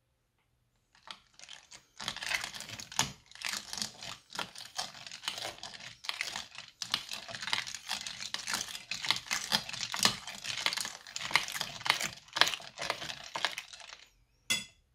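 Wet slime mixture being stirred in a bowl, making a dense, irregular sticky crackling and clicking that starts about a second in and stops just before the end, followed by one short click.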